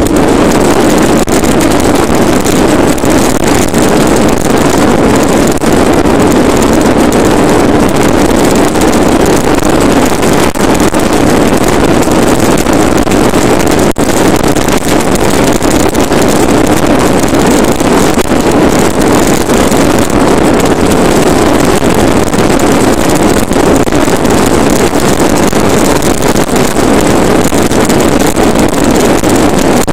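Plastic wheels of a Bobby-Car ride-on toy rolling fast down rough asphalt: a loud, steady rolling noise, with wind buffeting the microphone.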